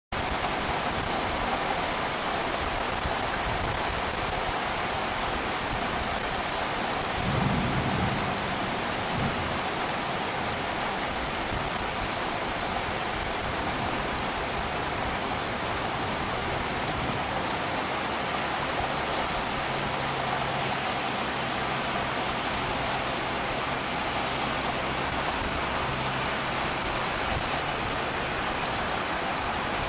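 Storm sound effect: heavy rain falling in a steady hiss, with a brief low rumble of thunder about seven seconds in.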